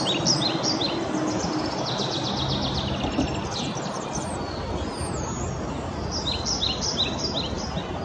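Small songbirds chirping in quick high clusters, with a fast trill a couple of seconds in, a single falling whistle midway, and another burst of chirps near the end, over steady background noise.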